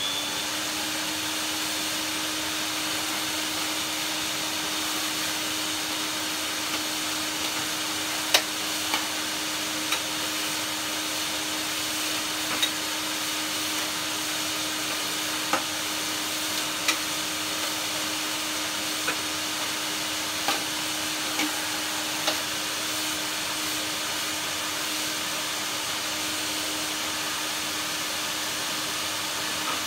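Vax vacuum cleaner running steadily while sucking out the inside of a dirty vacuum tub: an even rush of air over a steady motor hum, with a scattering of sharp clicks and knocks in the middle stretch.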